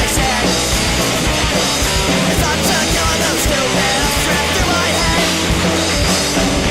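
Punk rock band playing a song on electric guitar, bass guitar and drums, with steady drum hits, in a stretch without singing.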